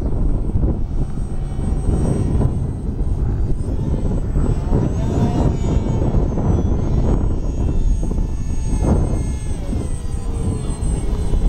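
The motor and propeller of a small foam RC parkjet in flight, a thin whine that glides up and down in pitch as the plane throttles and passes, over a loud rumble of wind on the microphone.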